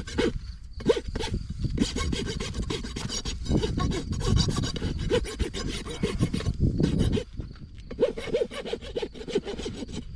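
Farrier's rasp filing a horse's hind hoof in quick, even back-and-forth strokes, with a short break near the start and another about seven seconds in.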